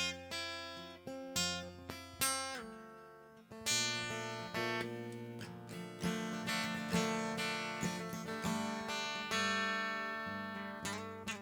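Acoustic guitar playing an instrumental passage: plucked notes and strummed chords, each struck sharply and left to ring out.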